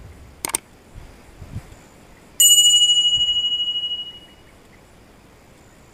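Subscribe-button animation sound effect: a short mouse click about half a second in, then a single bright bell ding about two and a half seconds in that rings and fades over about a second and a half.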